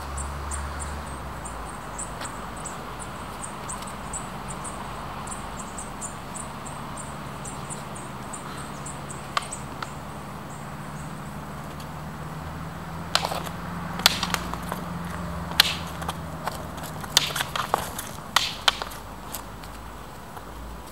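Training rapiers clacking together in a quick flurry of sharp strikes through the last third. Insects chirp quickly and evenly in the first half, over a low steady hum.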